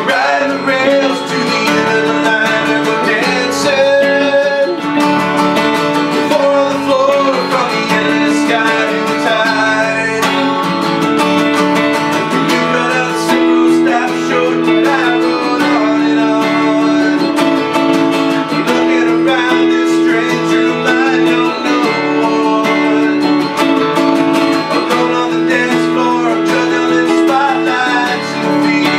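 Acoustic guitar strumming with a clean Telecaster-style electric guitar, and a man singing the melody over them.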